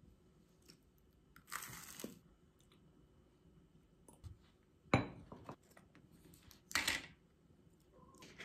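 Faint, crisp crunching of toast being bitten, once about one and a half seconds in and again near the end, with a single sharp knock on the table about five seconds in.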